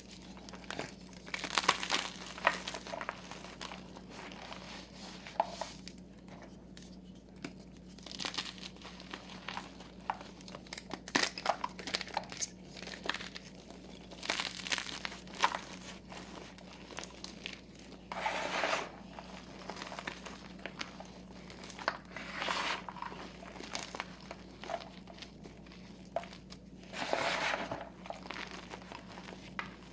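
Blocks of gym chalk crushed and crumbled in the hands: irregular dry crunches and crackles, with a few longer gritty squeezes about 18, 22 and 27 seconds in.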